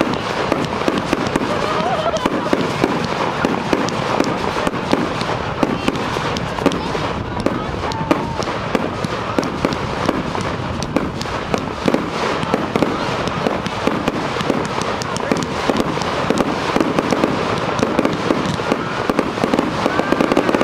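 Ground-level fireworks fountain firing continuously, a steady hissing spray dense with quick, irregular crackles and pops as it throws up sparks and coloured stars.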